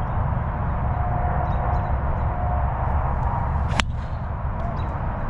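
A driver striking a golf ball off the tee: one sharp crack about four seconds in, over a steady low rumble.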